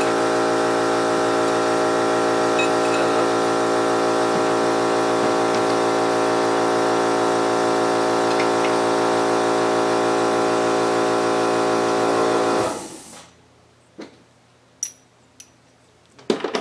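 A motor-driven tool or machine running loudly at a steady pitch. It shuts off about thirteen seconds in, followed by a few light metallic clicks.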